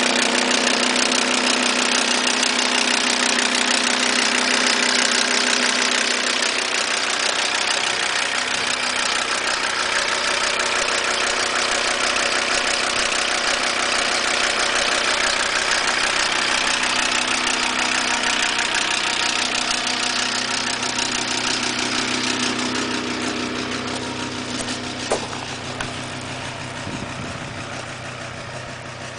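Audi A6 2.5 TDI V6 diesel idling with a rapid ticking from the top end. The tick is the inlet valves touching the pistons: a sheared key on the crankshaft timing-belt sprocket has left the cam 6-8 degrees advanced. The sound fades somewhat in the last third, with a single short click near the end.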